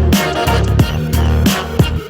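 Hip hop backing track with a steady beat: deep bass, kick drums and hand-clap or snare hits, no rapping.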